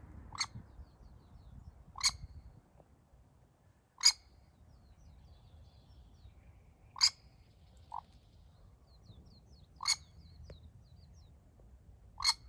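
Common pheasant hen giving short, sharp calls, seven in all, about every two to three seconds, the one about eight seconds in weaker; small birds chirp faintly between them.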